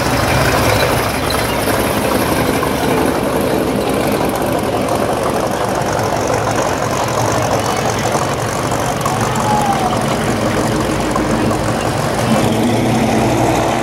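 Engines of classic cars and hot rods running at idle as they roll slowly past in a line, a steady low engine note that does not change much.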